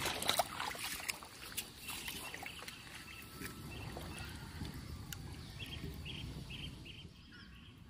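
Light water splashing and rod handling as a hooked fish struggles at the pond's edge before slipping free, with a few sharp clicks at the start. About halfway through, a run of short high chirps comes about two a second for a few seconds.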